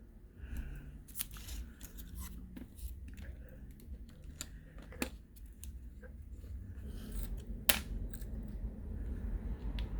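Scattered small clicks and taps of smartphone parts and repair tools being handled during reassembly, with one sharper click near the end.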